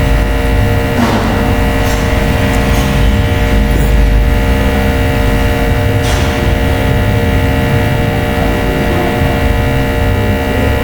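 Steady electrical hum with a low rumble underneath, holding a cluster of unchanging tones throughout.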